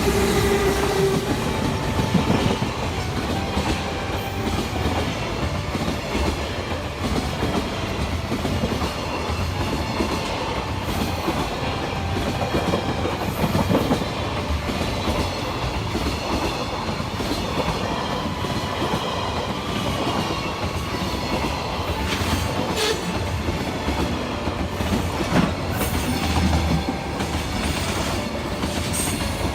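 A train running past at close range throughout, its wheels clattering over the rails with scattered clicks.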